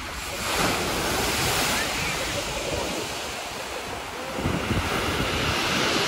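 Black Sea surf breaking on a pebble beach, swelling twice: once about half a second in and again near the four-and-a-half-second mark. Wind buffets the microphone throughout.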